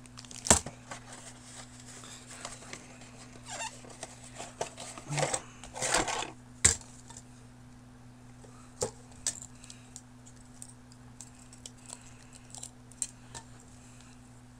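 Plastic packaging and a cardboard model box being handled: short crinkling rustles and scattered clicks and taps, the busiest stretch about five to seven seconds in. A steady low hum runs underneath.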